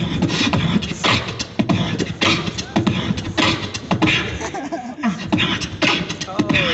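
Beatboxer performing into a microphone through a stage PA: a fast, steady rhythm of vocal kick drums and sharp snare-like clicks and hisses, with a few short pitched bass glides near the end.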